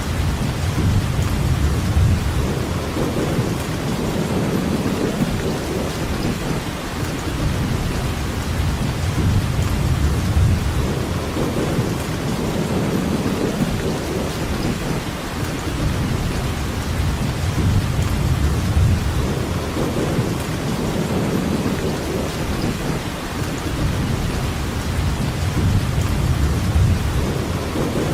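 Steady rainfall, an even hiss, under a low rumble that swells and fades every few seconds.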